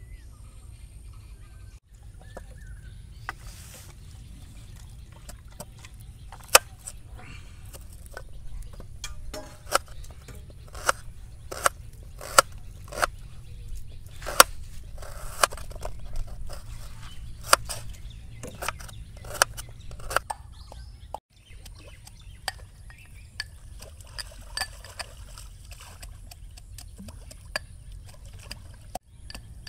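A kitchen knife slicing onions on a steel plate, the blade clicking sharply against the metal at an irregular pace over a steady low rumble.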